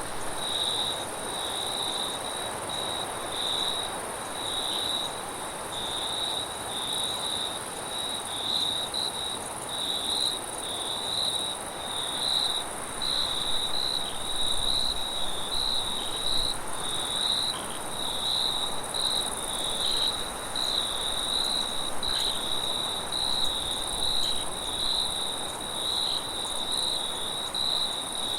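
Insect chorus: crickets trilling steadily in a near-continuous, faintly pulsing tone, with a second, higher-pitched insect buzz above it.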